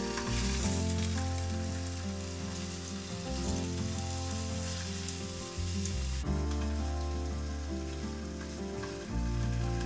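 Tuna cubes sizzling as they fry in oil in a frying pan, turned with chopsticks; the sizzle drops to a fainter hiss about six seconds in. Soft background music with sustained low notes runs underneath.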